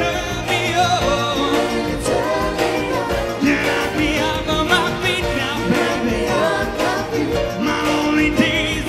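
Pop song performed by a vocal group with a backing band: singers over a steady beat.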